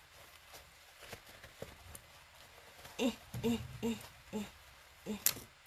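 Faint clicks and handling noises as a sewn fabric basket is worked with the hands, then a few muttered words and one sharp click near the end.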